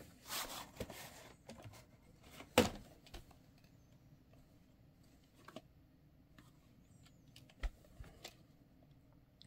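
Plastic VHS cassette being slid out of its cardboard sleeve and handled: a soft rustle, one sharp plastic knock about two and a half seconds in, then a few faint clicks and taps as the cassette is turned over.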